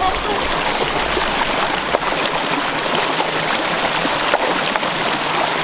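Shallow rocky stream running steadily over stones and a small cascade.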